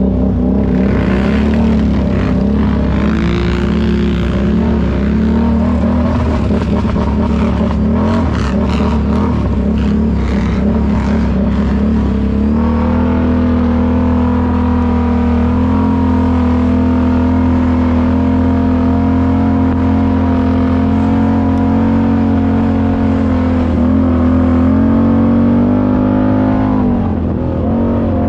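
ATV engine running under throttle. For the first dozen seconds the pitch wavers up and down, with scraping and crackling noise over it. It then holds a steady pitch at cruising speed, and eases off and picks up again briefly twice near the end.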